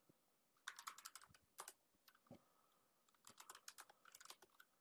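Faint typing on a computer keyboard: a quick run of keystrokes, a pause, then a second run of keystrokes.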